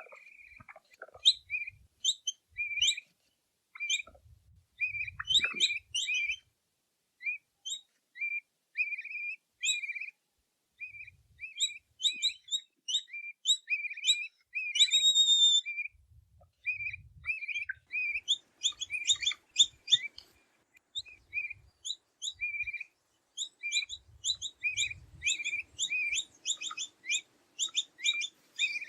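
Capybara squeaking: a long run of short, high chirping squeaks, two or three a second, in strings broken by brief pauses, with soft low thumps underneath.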